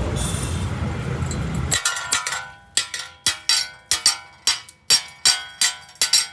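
A steady rushing noise cuts off about two seconds in. It is followed by about a dozen sharp, ringing metal taps, two or three a second, typical of a chipping hammer knocking slag off a freshly made weld.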